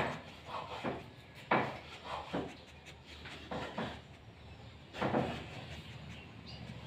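Irregular knocks and bumps, about one a second, the loudest right at the start, like furniture or household things being moved about.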